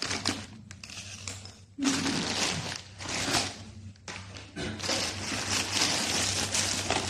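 Packaging being handled and rustled during an unboxing, in irregular bursts of crinkling noise with a few small knocks.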